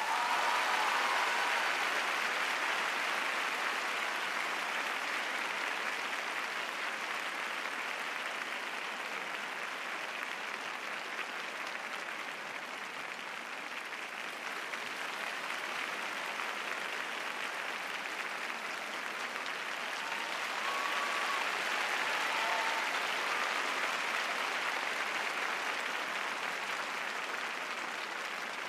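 Large arena audience applauding steadily at the end of a figure skating program, with a few faint calls from the crowd about two-thirds of the way through.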